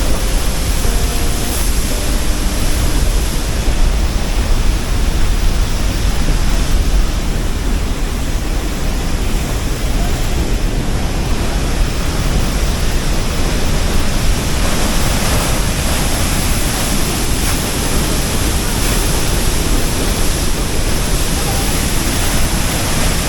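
Steady roar of a waterfall, an even rushing-water noise, with a few faint steady tones in the first seconds.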